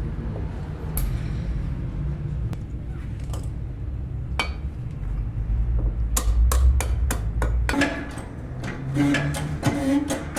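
Hammer striking metal: scattered knocks, then a quick run of blows about six seconds in, over a low steady rumble.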